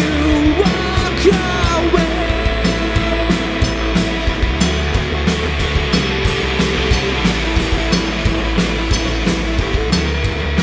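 Live rock band playing: electric guitar, bass guitar and drum kit, with cymbals struck in a steady beat of about three a second over held guitar notes.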